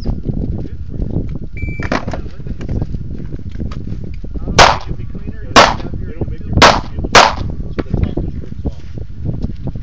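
A shot timer's short start beep, then a pistol fires four shots: three about a second apart and a fourth quickly after.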